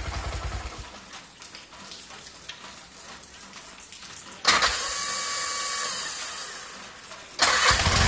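Bajaj auto rickshaw's single-cylinder four-stroke engine running for a moment, then dying away. About four and a half seconds in, the self-starter is pressed and gives a loud harsh whir with a whine that fades over about three seconds. Near the end the engine catches and runs. The starter's noise is the fault for which the mechanic says the starter motor must be opened and repaired before its gear gets damaged.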